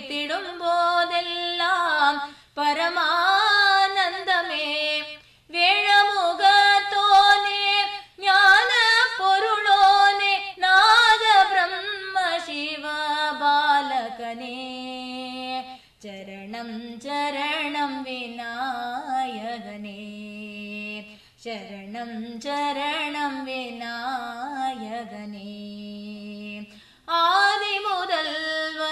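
A woman singing a Tamil devotional song solo and unaccompanied, in long ornamented phrases with short breaks for breath. About halfway through the melody drops lower and softer, with long held notes, then rises again near the end.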